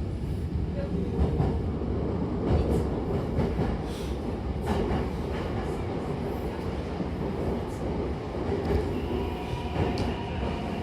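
Hankyu commuter train running on the Takarazuka Line, heard from inside the carriage: a steady rumble of wheels and running gear with a few sharp clicks over rail joints. About nine seconds in a faint whine of steady tones comes in.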